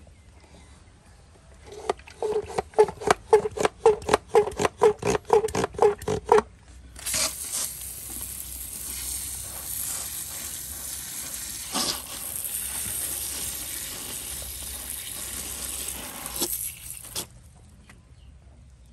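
Hand-pump garden pressure sprayer: about twenty quick pump strokes, each with a short pitched squeak. Then a steady hiss of water mist sprays for about ten seconds and cuts off suddenly.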